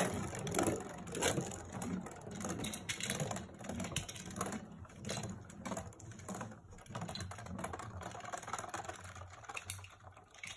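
Beyblade spinning top whirring and rattling in a red plastic stadium dish, with many small clicks as it knocks and scrapes across the plastic. It grows steadily quieter as the spin runs down.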